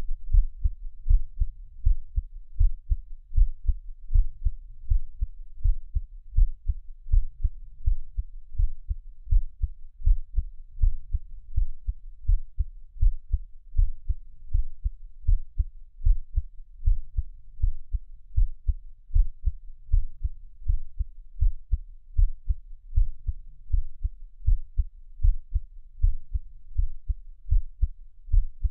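A person's heartbeat heard close up: a steady, even run of dull, low thumps.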